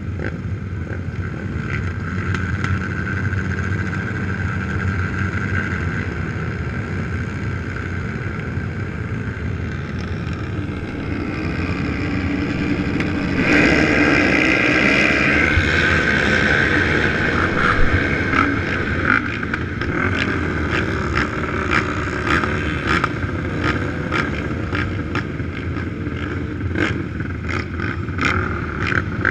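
Many race quad engines running together on a dirt start line: a steady engine drone that grows louder about halfway through, with short sharp crackles through the latter part.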